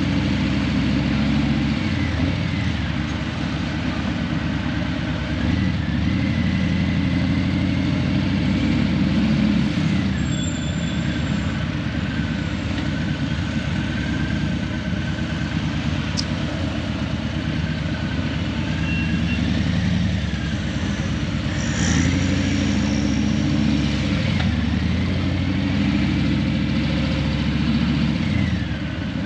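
Harley-Davidson Breakout 117's Milwaukee-Eight 117 V-twin running through Vance & Hines Eliminator 300 slip-on exhausts while riding, its revs rising and falling several times as the bike pulls away and slows.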